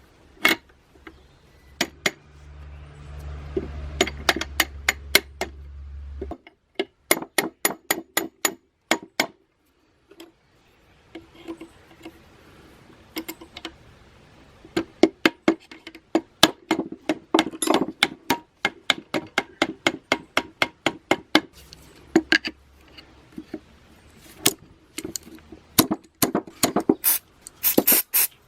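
Metal tools and parts tapping and clinking in quick runs of light hammer-like strikes, with a low hum for a few seconds near the start.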